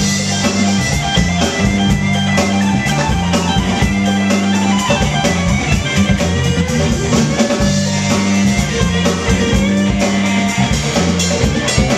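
A live rock band playing: electric guitar, electric bass and drum kit, with a repeating bass line and a steady drum beat.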